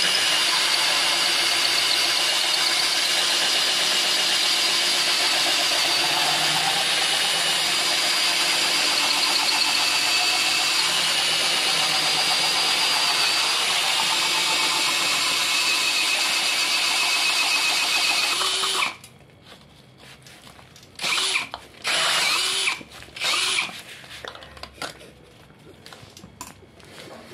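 Cordless drill with a round abrasive head grinding out the inside of a coconut shell half: a steady high whine over a grinding hiss that cuts off abruptly about two-thirds of the way in. A few short loud bursts and quieter handling follow.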